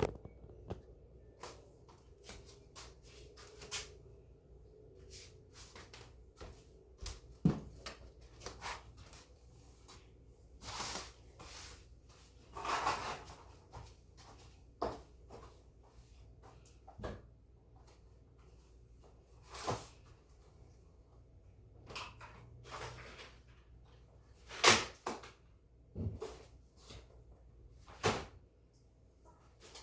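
Hands-on room cleaning: irregular knocks and clicks of objects being handled and set down, with a few brief swishes, the loudest knock about 25 seconds in. No vacuum is running.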